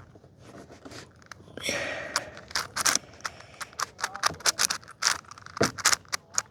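Plastic clicking and scraping of a 6x6 Rubik's cube as its layers are turned by hand, in quick irregular turns.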